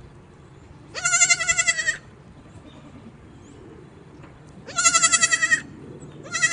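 A goat bleating three times, each a high, wavering call of about a second; the third begins near the end.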